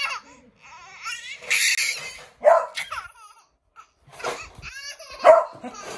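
A beagle barking in several short, loud bursts while a baby laughs between them.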